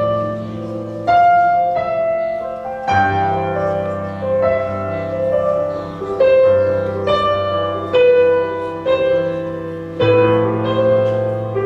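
Slow, soft piano music: single notes struck every second or two over sustained chords, ringing out between strikes.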